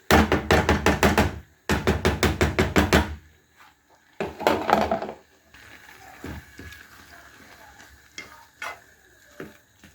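Spoon clattering rapidly against a dish as ingredients are mixed together. It comes in two quick runs of about a second and a half each, then a shorter run around four seconds in, and a few faint knocks after that.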